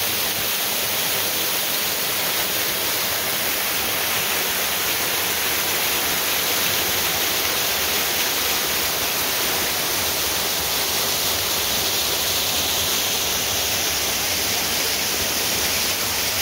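Small waterfall pouring down a rock face and splashing into a shallow pool, making a steady rush of falling water.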